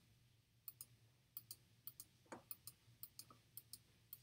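Near silence: faint room tone with a low hum and light, irregularly spaced clicks, about four a second.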